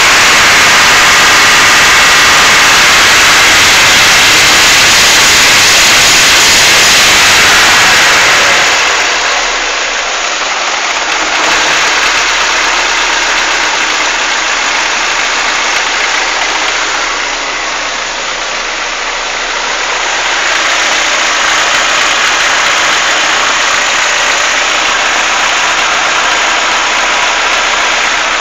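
Chevrolet Monza engine running hot, its mechanical noise steady throughout, loud for about the first eight seconds and somewhat quieter after. The owner hears noises from it once warm and is unsure whether they are normal, with valve lifters or piston skirt slap as the suggested causes.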